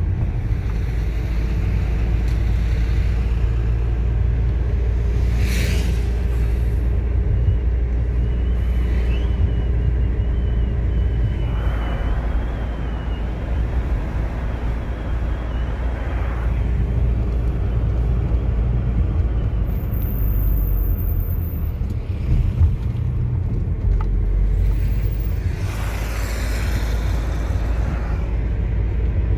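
Steady low rumble of a car's engine and tyres on the road, heard from inside the moving car, with a few brief swells of louder noise along the way.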